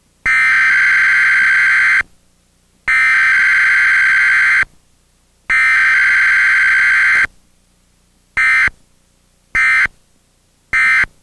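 Emergency Alert System SAME digital header sent three times as loud, buzzing data bursts of a little under two seconds each, a second apart. Three short end-of-message bursts follow about a second apart, with no attention tone, marking an EAS test.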